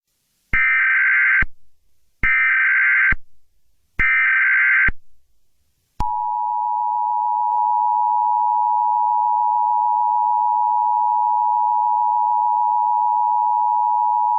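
Emergency Alert System tones: three short bursts of SAME header data, each about a second long, then the EAS attention signal, a steady two-tone beep of 853 and 960 Hz. The beep is held for about eight seconds and cuts off suddenly, announcing that an alert message is about to be read.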